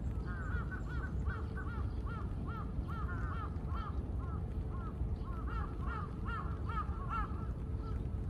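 Birds calling in a rapid run of short notes that rise and fall, several overlapping, about two or three a second. A steady low rumble of background noise runs beneath them.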